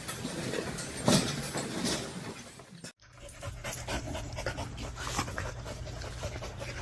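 A dog panting in quick, rapid breaths. A short louder sound comes about a second in, and the sound cuts out briefly about three seconds in before the panting goes on.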